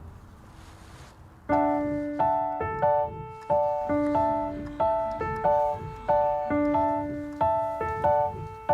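Background piano music: after a quiet first second and a half, a keyboard comes in playing a gentle run of notes and chords, each note fading away before the next.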